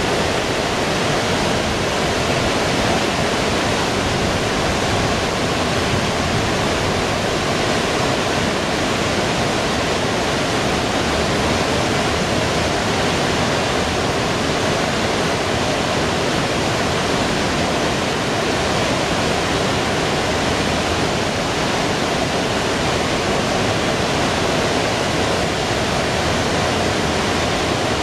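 Waterfall of the Reuss river rushing down the rocky gorge: loud, steady and unchanging.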